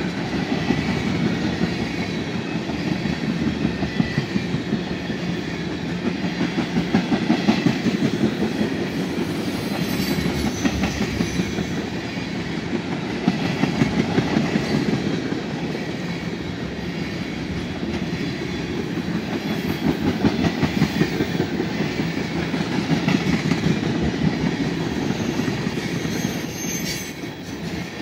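Freight train of tank cars rolling past, steel wheels clacking over the rail joints in a steady rhythm, the sound swelling and easing every few seconds as each car's wheel sets go by.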